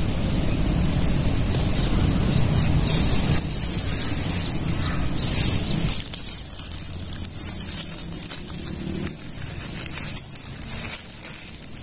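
Outdoor rice-paddy ambience: a low rumble that eases off about six seconds in, under a steady high hiss, with faint rustling clicks later on.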